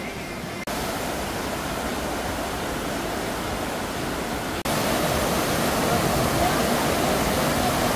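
Steady rushing water, as from water-park slides and fountains. It changes abruptly about two-thirds of a second in and again just past halfway, and is louder after the second change.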